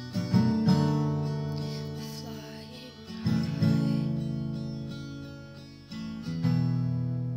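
Background music: acoustic guitar strumming chords, two strums about every three seconds, each pair left to ring out and fade.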